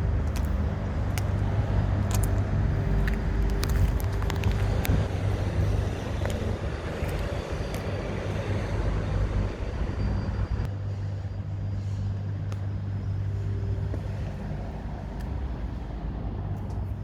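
MINI John Cooper Works engine idling steadily, with scattered sharp clicks and knocks in the first few seconds.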